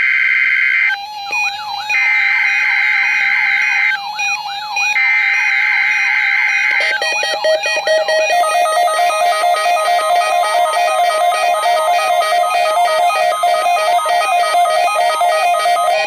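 NOAA Weather Radio Emergency Alert System SAME header tones: three screeching digital data bursts, each about two seconds long, sending the Required Weekly Test code. Overlapping them and running on after the last burst is a rapidly warbling, siren-like electronic alert tone that rises and falls.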